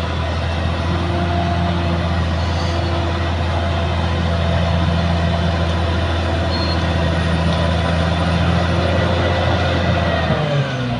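Caterpillar D6R XL bulldozer's diesel engine running steadily with a deep hum; near the end the engine note dips and then rises again.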